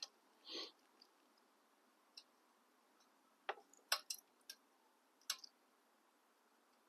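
Faint, irregular metallic clicks and clinks of hand tools on the exhaust fasteners, a few separate ticks spread over several seconds with quiet between them.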